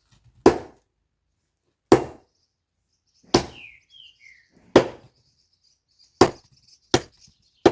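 An axe chopping firewood: about seven hard strikes, roughly one every second and a half.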